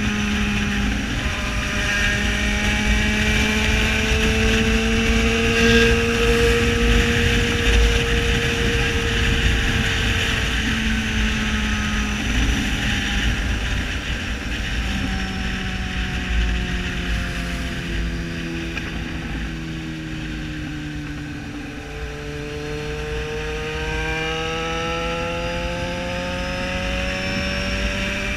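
Yamaha XJ6 Diversion's inline-four running through a full straight-pipe exhaust while being ridden, its note climbing over the first few seconds, sinking slowly to a low point about three quarters of the way through, then climbing again. Wind rumbles on the microphone underneath.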